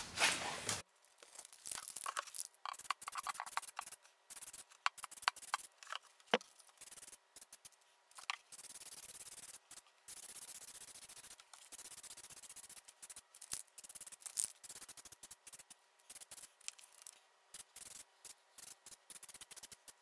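Aerosol can of Flex Seal liquid rubber spraying a coat onto a cabinet floor: a hiss that starts and stops, in short spurts and longer passes of a second or two, with a few sharp clicks in between.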